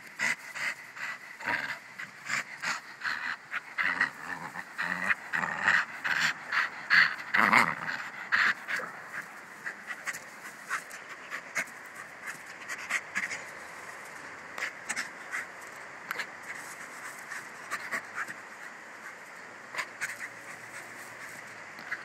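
Dog panting fast and rhythmically, about two to three breaths a second, louder for the first nine seconds or so, then softer.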